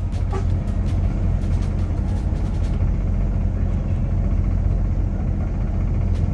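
Coach bus engine running with a steady low drone, heard from inside the cabin, with faint ticks and rattles during the first few seconds.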